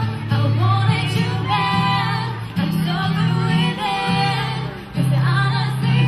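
Live song: a woman singing into a microphone, accompanied by an acoustic guitar, over the stage PA.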